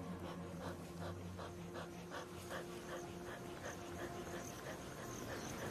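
Cheetah panting rapidly through its open mouth, short even breaths at about four a second, with background music fading out under it.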